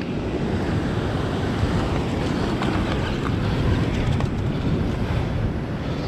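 Steady wind rushing over the microphone, mixed with waves surging and breaking against the rocks below.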